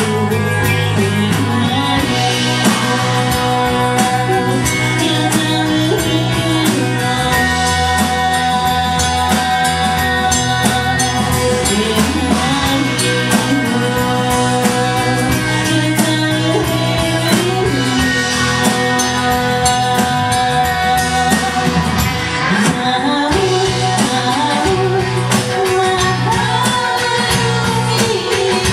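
Live band playing a downtempo chill-out song: a woman sings over a drum kit and low held notes that change every few seconds.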